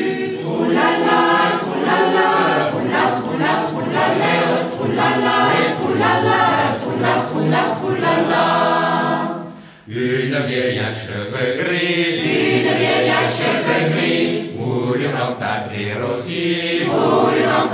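Choir singing a French drinking song, most likely its wordless 'troulala' refrain between verses. The singing breaks off briefly about ten seconds in, then picks up again, and the next sung verse begins near the end.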